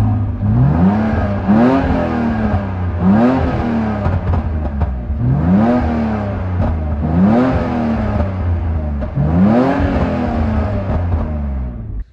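Car engine blipped through about six revs, each rising quickly and falling back more slowly, over a steady idle, then cutting off abruptly near the end.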